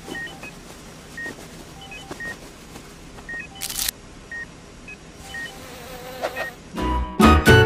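Short electronic beeps repeating about once a second, with a brief crinkle of tissue paper about halfway through. Loud music comes in near the end.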